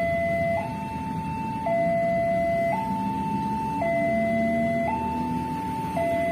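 Electronic warning alarm of a railway level crossing sounding a hi-lo two-tone pattern, switching between a lower and a higher tone about once a second, which signals that a train is approaching and the barrier is closed. A low rumble of idling road traffic runs underneath.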